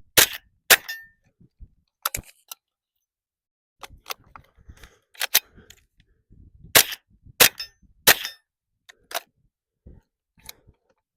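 HK MP5 .22LR rifle firing single shots, about nine sharp cracks at uneven intervals, with a few short pauses between them.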